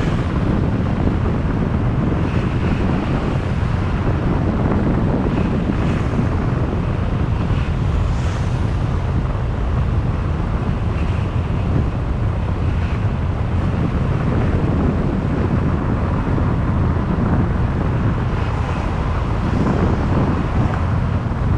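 Wind buffeting the microphone of a moving motorbike, a loud steady rush with the bike's engine and road noise running beneath it.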